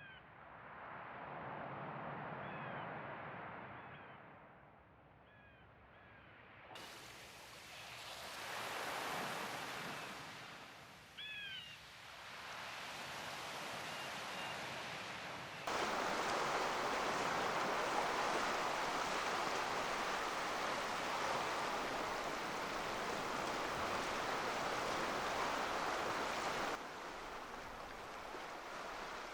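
Black Sea waves washing and surging against a rocky shore, swelling and ebbing, the sound changing abruptly three times as one recording gives way to another. A bird gives short chirps now and then in the first half.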